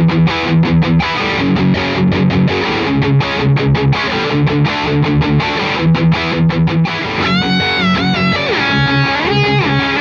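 Electric guitar playing a riff of short, rhythmically repeated low notes. About seven seconds in it switches to long held lead notes with a bend up in pitch and some vibrato.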